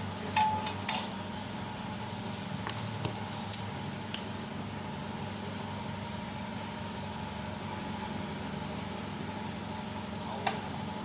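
Steady low mechanical hum of a running motor or engine, with a few sharp metallic clinks of tools in the first second and one more near the end.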